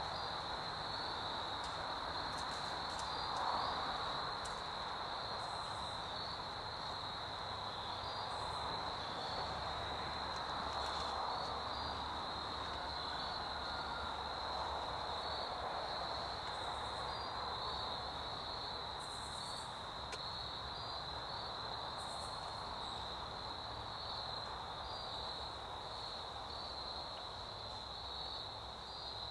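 Steady high-pitched insect chorus, crickets trilling without a break, over a faint hiss of woodland air.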